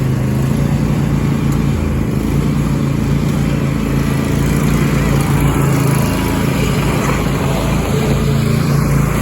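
Riding lawn mower engines, a John Deere and a small Cub Cadet, running steadily under way.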